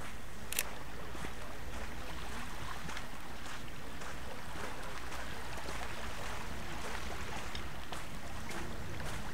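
Steady outdoor wind and water noise with a low rumble, and one sharp click about half a second in.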